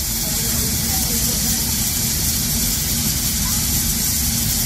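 Steam hissing steadily and loudly from a steam locomotive standing in steam, over a low continuous rumble.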